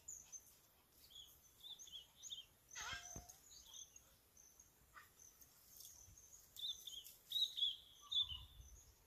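Small birds chirping: short, high chirps repeated throughout, with one falling call about three seconds in and a run of louder chirps near the end.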